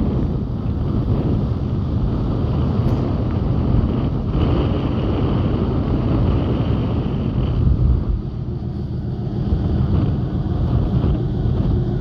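Wind buffeting the microphone on a ship's open upper bridge deck: a steady, gusting low rumble, with a faint high tone for a few seconds midway.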